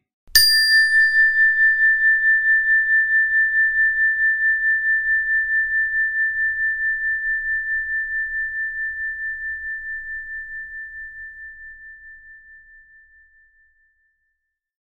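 A single struck metallic chime rings out once, a high tone with a wavering beat. It dies away slowly over about thirteen seconds, and its brighter overtones fade within the first two seconds.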